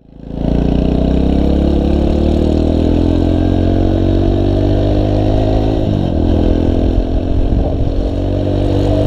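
Motorcycle engine running under way, its pitch climbing slowly as the bike pulls through a gear. About six seconds in the pitch drops sharply, and the engine then runs lower and less evenly.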